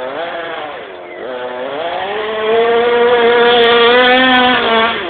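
Two-stroke petrol engine of a large-scale FG RC monster truck, revving up and down, then held at high revs for about two seconds before dropping back near the end.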